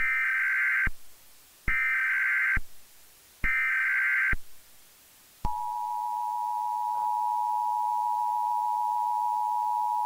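Emergency Alert System SAME header: three data bursts of shrill warbling tones, each just under a second long with short gaps between. About a second after the third, the steady two-tone EAS attention signal starts and holds, the signal that an emergency alert message follows.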